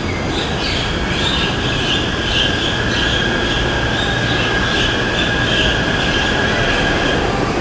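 Taipei Metro train pulling away from the platform: a steady high whine holds over the rumble of the moving cars, with a higher squeal pulsing about twice a second above it.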